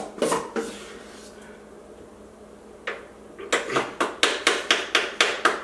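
A spoon knocking against metal bakeware while cupcake batter is portioned out: a few knocks at the start, one about three seconds in, then a quick run of about ten sharp taps, roughly five a second.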